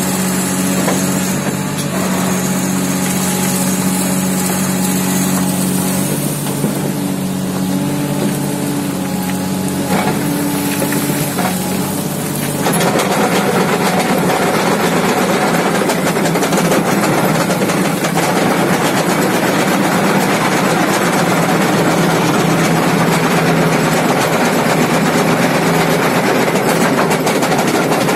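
Komatsu excavator's diesel engine running with a steady hum. About twelve seconds in it gets louder and a dense rattling joins, as the vibrating skeleton screening bucket shakes rock and soil through its grid.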